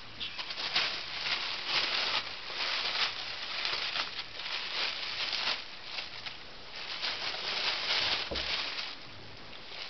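Thin plastic shopping bag crinkling and rustling in irregular bursts as two ferrets wrestle and burrow in it, with a dull thump about eight seconds in.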